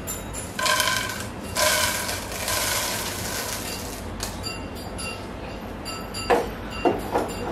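Popcorn poured from a stainless steel bowl into a metal cooking pan, rattling in two pours, the first about half a second in and the second from about a second and a half to three seconds. A few sharp clinks come near the end.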